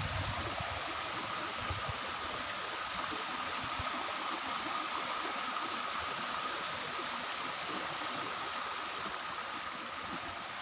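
Stream water running steadily into a small pool, a constant rushing hiss. A few low bumps sound in the first two seconds.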